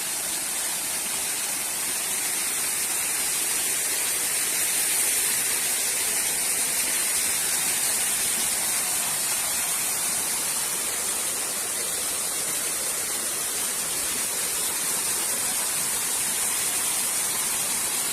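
Small waterfall rushing, a steady even hiss of falling water.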